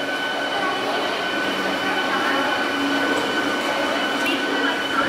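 MEMU electric multiple unit running slowly along the platform: the noise of its wheels on the rails, with a steady high whine over it.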